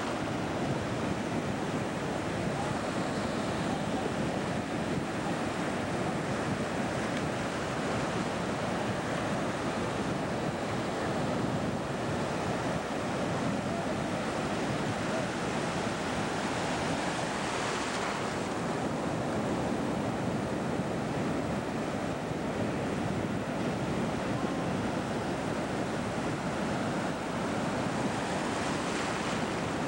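Sea surf breaking and washing steadily, with wind on the microphone. One wave breaks a little more sharply about eighteen seconds in.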